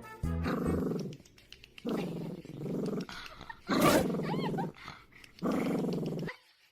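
A dog growling in four drawn-out bouts, each just under a second long and about a second and a half to two seconds apart.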